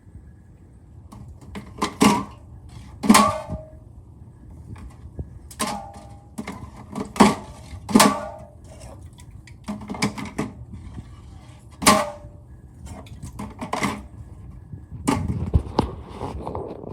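Aluminium drink cans knocking against each other and the plastic can dispenser: a dozen or so irregular clanks, several with a short metallic ring.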